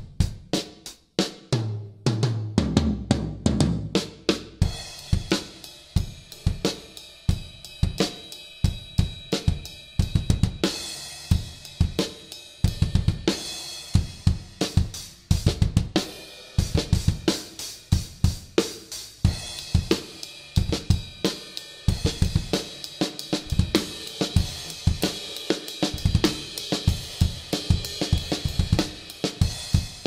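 Solo drum kit, a 1980 Pearl maple kit with Zildjian cymbals, played in rapid paradiddle sticking with a shuffle feel across snare, toms and bass drum. A fill down the toms comes about two seconds in, and after that cymbals and hi-hat ring over the strokes.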